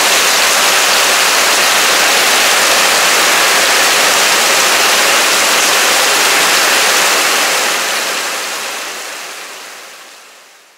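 Heavy downpour, water pouring off the edge of a roof onto the ground in a steady loud rush. It fades away over the last three seconds.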